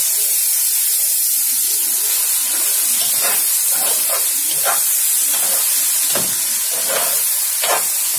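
Washed rice sizzling as it is fried in hot oil with darkly browned onions in a large pot, the toasting stage before water goes in. From about three seconds in a spoon scrapes through the rice in irregular strokes.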